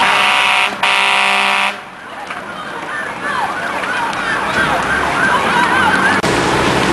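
Fire truck air horn sounding in one loud, steady blast of nearly two seconds, then cutting off sharply. Voices and engine noise follow.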